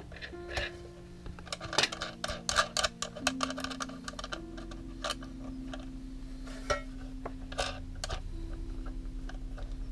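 Quiet background music with long held notes, over a run of small sharp clicks and rattles from wire leads being worked into a power supply's terminals, thickest in the first half and a couple more near the end.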